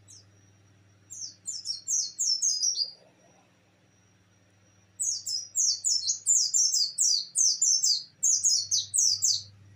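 White-eye (pleci) singing its rapid 'nembak' song: two bursts of quick, high, downward-sliding notes, the first about a second in and the longer one from about halfway to near the end.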